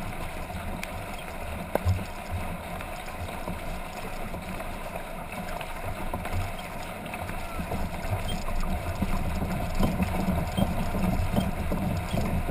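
A sprint kayak under way heard from a camera on its deck: water rushing and splashing along the hull and from the paddle strokes, with wind rumbling on the microphone, getting louder in the last few seconds.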